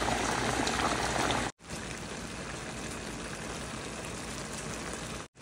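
Pot of beans at a rolling boil, bubbling; after a short break about a second and a half in, a quieter, steady simmering of a beef, potato and cabbage stew in a frying pan.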